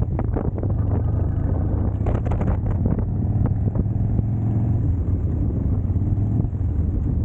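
Car engine and road noise heard from inside the cabin: a steady low drone, with a few brief rattles early on and about two seconds in.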